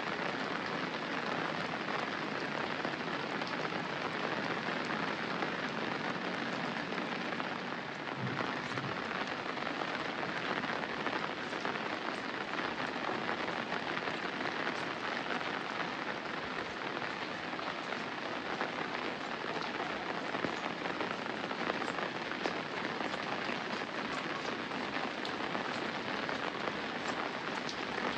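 Steady rain falling, an even hiss with occasional individual drops standing out.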